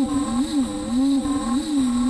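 Beaver HDZero CNC router machining aluminum tool plate: a whining motor tone that swoops up and down in pitch about every half second, over a steady high-pitched whine.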